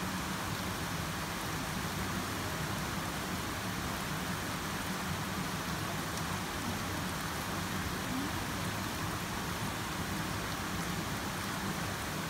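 Steady rushing of a forest river flowing over rocks.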